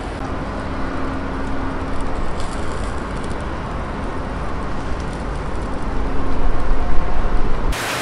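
Whole kahawai sizzling on a charcoal grill: a steady, dense hiss with small crackles and pops, like the sound of a rain shower. It swells in the last couple of seconds, then cuts off abruptly to rain.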